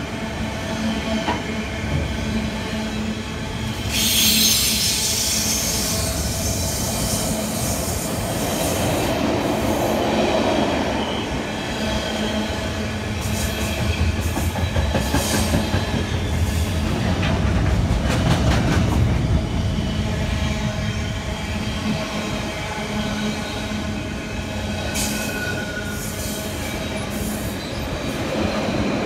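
Intermodal container freight train's loaded wagons rolling past close by: a continuous rumble and clatter of wheels on rail. Short high-pitched wheel squeals cut through, loudest about four seconds in, with a few briefer ones later.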